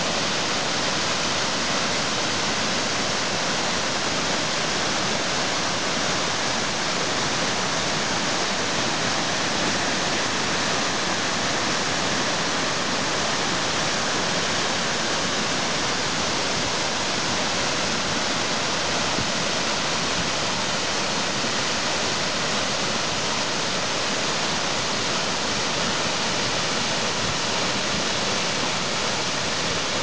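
Tatsusawa Fudo Falls, a broad curtain waterfall, pouring onto rocks in its plunge pool: a steady, even rush of falling water.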